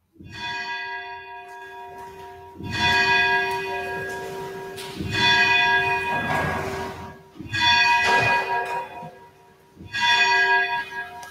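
Church bells ringing, a fresh stroke about every two and a half seconds, each tone ringing on slowly into the next.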